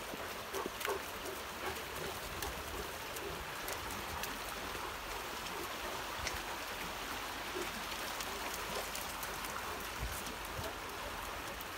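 Steady rush of a small rocky stream flowing fast over stones, with scattered light clicks and ticks on top.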